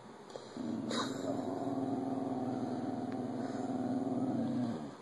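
Dog growling, one long low growl lasting about four seconds that stops just before the end: a warning growl at the television, which she treats as a threat.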